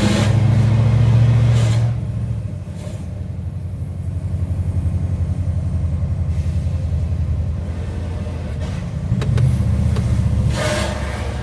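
Scania R730's V8 diesel engine pulling hard, then easing off about two seconds in and running steadily before pulling again near the end. There are brief hisses around the two load changes.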